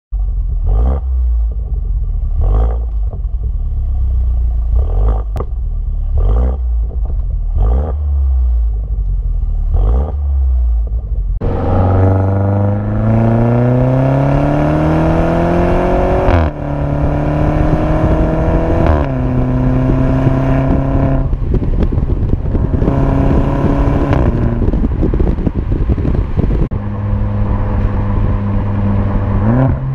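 Mercedes-Benz C300's 2.0-litre turbo four-cylinder through a Fi valvetronic cat-back exhaust with quad tips, idling for about eleven seconds, then revved: the note climbs and drops back several times, with the revs held steady in between.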